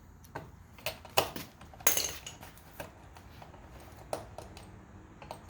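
Scattered clicks and clinks of hand tools and small parts being handled, about half a dozen sharp knocks with the loudest a little over a second in, and a short scrape about two seconds in.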